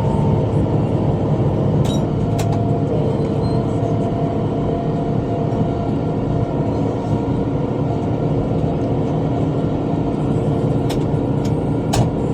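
Tractor engine running steadily while pulling a bush hog rotary cutter through brush. A few short sharp clicks sound over it, two about two seconds in and three near the end.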